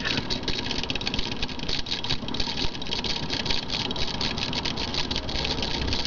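Small homemade magnet motor running, its homemade paper-clip reed switch clicking in a fast, even stream as the rotor's magnets pass it.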